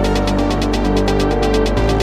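Electronic dance music with a steady fast beat and a held bass line.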